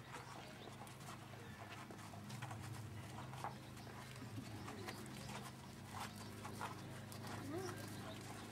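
Hooves of several ridden ponies walking on packed sandy ground: soft, irregular clops over a low steady hum.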